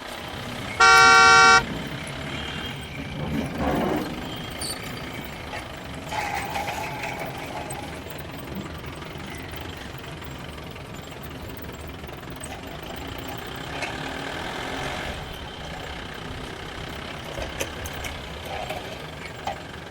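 A single loud horn toot about a second in, lasting under a second, followed by a steady background of vehicle-like noise with scattered faint tones and knocks.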